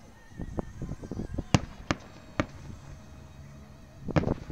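Aerial fireworks bursting: a quick run of pops and crackles, then three loud bangs about half a second apart, and another cluster of bangs near the end.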